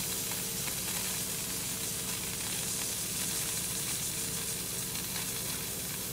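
Pop-up lawn sprinkler heads hissing steadily as compressed air pushes the last water out of the zone as a fine mist, during a sprinkler blowout. A steady low hum runs underneath.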